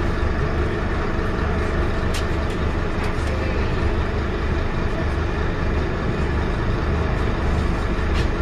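Scania K230UB bus's nine-litre five-cylinder diesel running steadily, a low rumble with road noise, heard from inside the passenger saloon. A few light rattles click through it.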